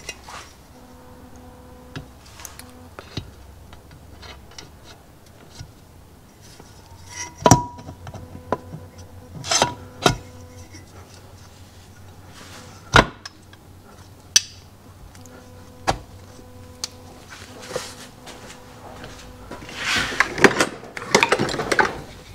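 Aluminium crankcase halves of a Yamaha HS1 90cc twin engine knocking and clunking as the upper case half is lowered and pressed onto the lower half. There are several separate sharp knocks, then a burst of clattering near the end.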